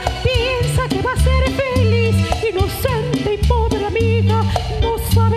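Live band playing an instrumental break in a Latin song: a wavering melody line over repeating bass notes and steady percussion.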